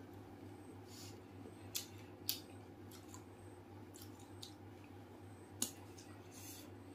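Crisp pani puri shells crunching and cracking as they are chewed and broken with the fingers, a few sharp cracks, the loudest about two seconds in and again past five and a half seconds, over a steady low hum.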